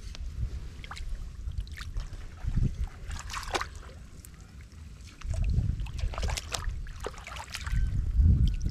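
Wet mud and shallow water sloshing and splashing in short bursts over a low rumble, which grows louder about five seconds in.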